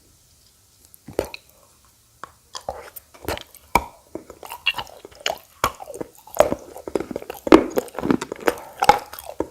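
Crunching and chewing of edible clay, red khawa clay balls, bitten in the mouth: sharp irregular crunches starting about a second in and coming faster and louder toward the end.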